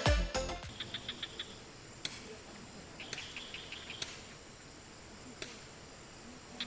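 Faint tropical forest ambience. Two short trains of rapid, high-pitched chirps, about five a second, sound against a thin steady high insect whine, with a few sharp clicks scattered through. Music cuts off right at the start.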